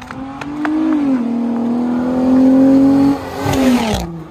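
Truck engine revving, its note rising, holding for a couple of seconds, then dropping away and cutting off near the end. It sounds like the VQ V6 of a Nissan 350Z.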